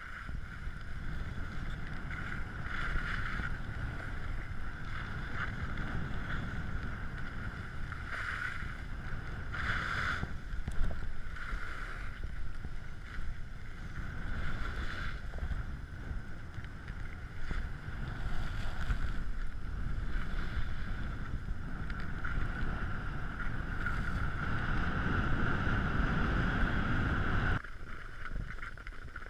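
Wind rushing over an action camera's microphone while skiing downhill, with the skis hissing and scraping on the snow and swelling at the turns. It cuts off suddenly near the end as the skier stops.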